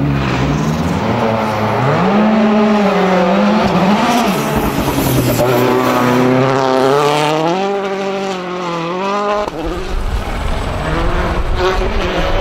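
Citroën DS3 WRC rally car's 1.6-litre turbocharged four-cylinder engine at full effort, its pitch rising and dropping again and again through gear changes and lifts. About nine and a half seconds in, the sound cuts abruptly to a deeper engine rumble from a Volkswagen Polo R WRC approaching.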